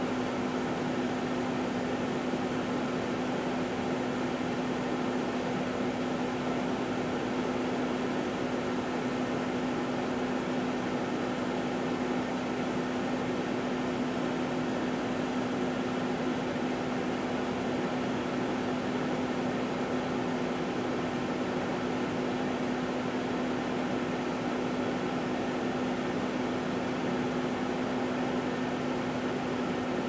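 A 1978 GE Dual Wave microwave oven running steadily: a constant low hum over the whir of its fan.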